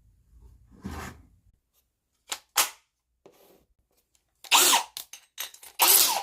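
A series of sharp clacks and knocks of hard metal parts, with the two loudest about four and a half and six seconds in, each trailing a brief metallic ring.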